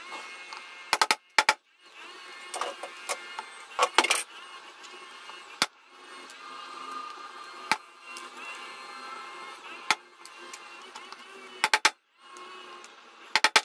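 Irregular sharp metallic clicks and taps, some in quick clusters, as copper rivets and a steel rivet setter are handled and set in place on a thick leather wallet flap before hammering.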